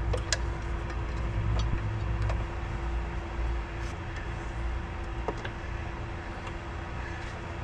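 A steady low rumble with a constant mid-pitched hum, like a vehicle or machine running in the background, with a few faint light clicks.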